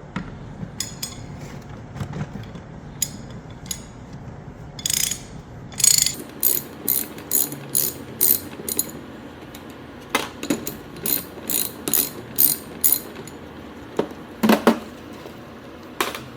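Socket ratchet wrench with a 27 mm socket clicking in rapid strokes, about two to three a second, as it backs off the nuts on a hydraulic cable cutter's master shaft. The clicking comes in two runs, with a couple of louder knocks near the end.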